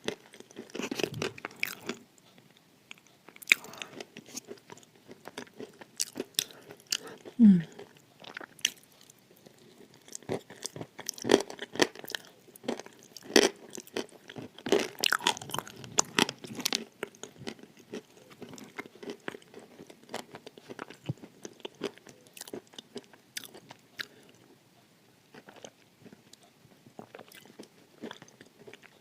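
Close-miked crunching and chewing of dry eating clay: irregular sharp bites and crackling crunches between stretches of softer chewing. About seven and a half seconds in, a short low throat sound falls in pitch.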